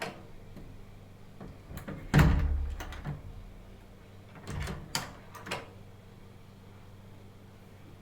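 A door fitted with a smart lock being worked. There are a few latch and handle clicks, then a heavy thud a little over two seconds in as the door shuts, then another run of sharp clicks and knocks from the lock hardware around five seconds in.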